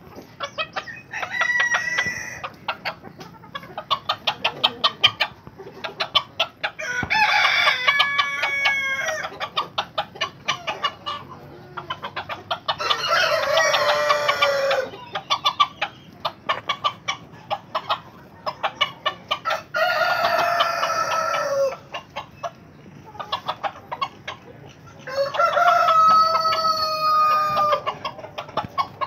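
Lakenvelder roosters crowing, five long calls about six seconds apart, over a steady rapid tapping of beaks pecking feed off a concrete floor.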